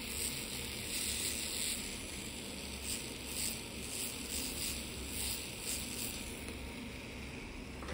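Podiatry rotary drill with a sanding cap running steadily, a hissing grind as it sands hard skin on the underside of a toe.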